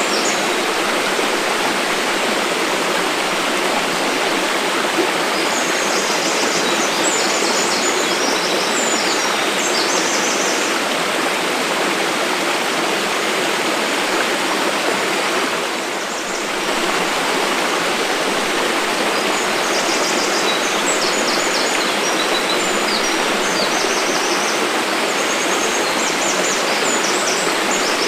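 Mountain waterfall: a steady rush of falling water, dipping briefly about sixteen seconds in. Short high chirps come and go above the rush.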